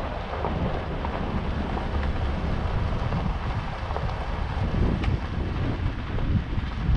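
Wind buffeting the camera's microphone: a steady low rumble with a few small crackles scattered through it.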